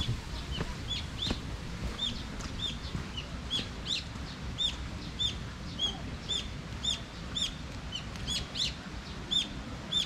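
A bird calling over and over in short, high chirps, about two to three a second.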